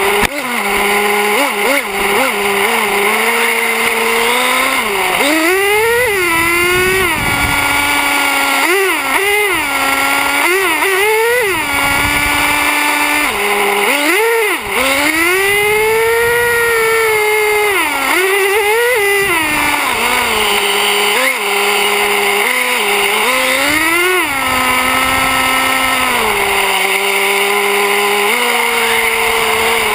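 Traxxas Slayer 4x4 RC truck's nitro engine, heard close up from a camera mounted on the truck. It idles steadily at first, then revs up and down in repeated rising and falling bursts through the middle, and settles back to idle in the last third.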